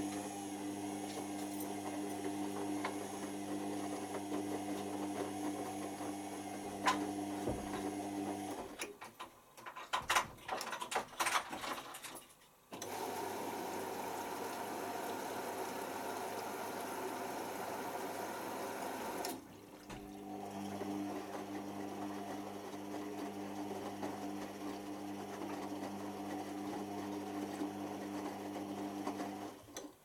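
Beko WMA510 washing machine in its pre-wash: the drum motor hums steadily as it tumbles the load, stops with a few seconds of clicks and knocks, then the inlet valve opens for a top-up fill and water runs in with a steady hiss for about six seconds. The drum motor then hums again and stops just before the end.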